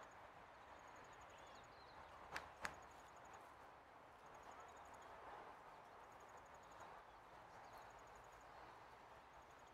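Near silence: faint outdoor background with two short clicks in quick succession about two and a half seconds in.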